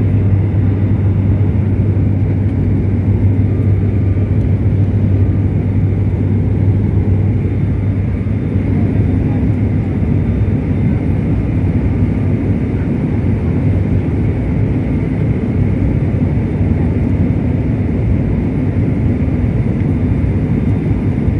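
Cabin drone of an ATR 72-600 turboprop in cruise: its Pratt & Whitney PW127 engine and six-bladed propeller give a loud, steady low hum with an even rushing noise over it.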